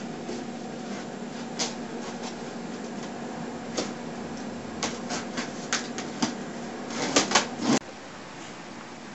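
A cardboard shipping box being cut open: scattered sharp scrapes and clicks of a blade through packing tape and cardboard, bunching into a quick cluster near the end, over a steady low hum. Shortly before the end it cuts off to a quieter steady hiss.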